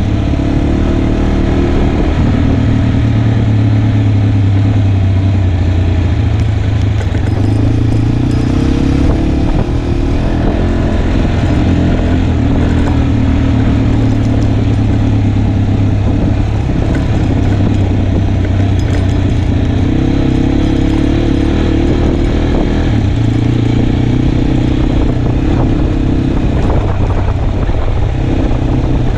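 Motorcycle engine running as the bike is ridden over a gravel dirt road. The engine note changes with the throttle, over a steady rough noise of tyres on gravel and wind.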